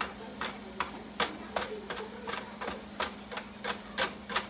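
A plastic meat chopper tapping against a frying pan as it breaks breakfast sausage into crumbles: quick, sharp clicks, about three a second.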